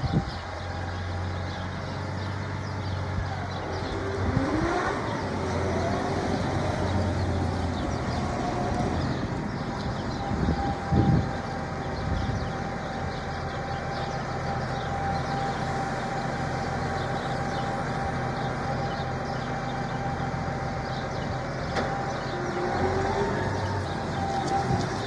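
New Holland T7.290 tractor's six-cylinder diesel engine running as the tractor drives and manoeuvres, its pitch rising and falling briefly about four seconds in. A steady whine joins from about eight seconds in, and there is a short louder noise about eleven seconds in.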